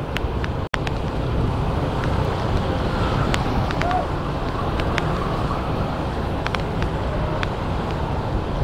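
Steady engine and road noise of a moving vehicle, with wind on the microphone. The sound cuts out completely for an instant about a second in.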